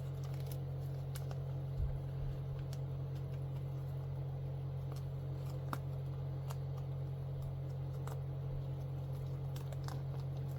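Faint handling sounds of comic books in plastic bags being shuffled and set down: scattered light clicks and rustles, with a small knock about two seconds in, over a steady low hum.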